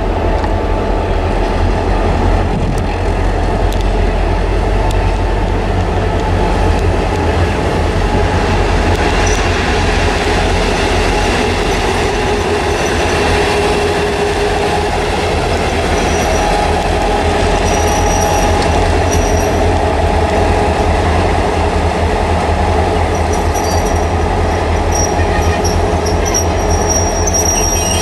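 Pair of HŽ Cargo series 2062 diesel-electric locomotives running on a freight train, their engines giving a loud, steady low drone. From about a third of the way in, thin high wheel squeal comes and goes over it.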